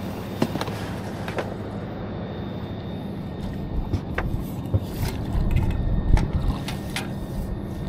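Rods, reel and a landing net being handled in an aluminium boat, with scattered clicks and knocks over a steady low hum. The noise grows denser about five seconds in as a hooked blue catfish splashes at the surface beside the boat while it is netted.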